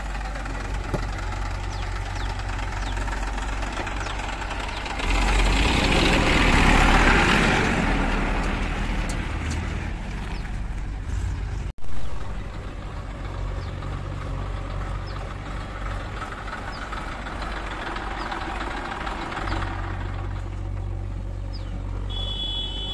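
Diesel engines of a JCB 3DX backhoe loader and a Massey Ferguson tractor running steadily while the backhoe digs and loads soil into the tractor trolley. The sound grows louder and rougher for several seconds about a third of the way in.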